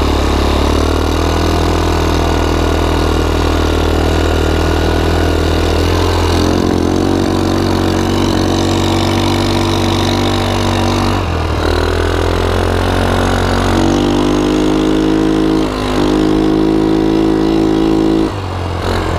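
Rapidity GY6 150cc single-cylinder four-stroke quad engine running steadily under way. Its pitch steps up and down several times as the throttle is opened and eased off.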